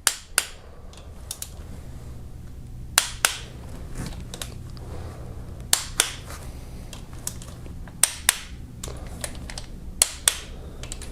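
Click-type torque wrench breaking at its set torque as timing-chain tensioner and guide bolts are tightened: a sharp double click, the two clicks about a third of a second apart, five times over, every two to three seconds.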